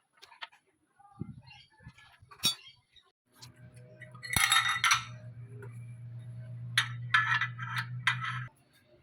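Metal parts and tools clinking and knocking together in a series of sharp strikes. A steady low hum starts a few seconds in and stops near the end.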